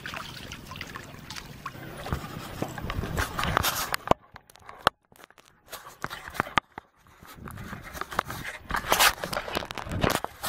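Sea kayak paddle strokes splashing and water lapping for the first few seconds. After a short silence come irregular scrapes and rustles as a kayak is carried across wet tidal mud.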